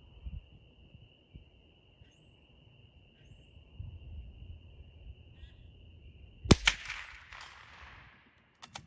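A single shot from a Ruger American Rimfire Long Range Target bolt-action .22 LR rifle: one sharp crack followed by an echo that dies away over about a second and a half. A few short sharp clicks come near the end.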